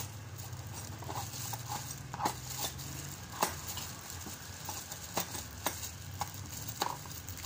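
Hands fitting tools into a moulded plastic tool case: scattered light clicks and knocks of a metal adjustable wrench and plastic against the case, irregular, the sharpest about three and a half seconds in.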